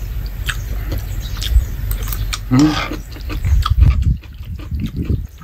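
A person eating noodles close to the microphone: chewing and slurping, with small clicks and wet mouth noises. A louder slurping stretch comes about two and a half seconds in.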